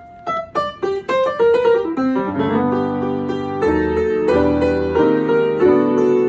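Piano music: a quick run of single notes, then held full chords over low bass notes from about two and a half seconds in.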